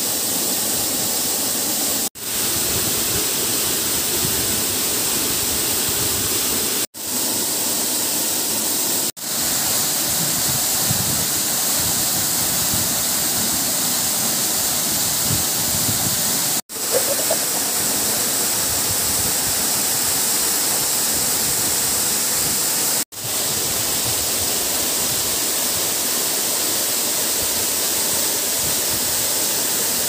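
Steady rush of a waterfall and the stream below it. It cuts out for a moment five times, fading back in after each gap.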